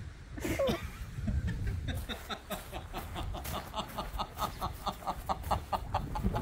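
Frightened puppy yelping in a fast, even series of short high yelps, several a second, starting about two seconds in. A single falling whine comes about half a second in.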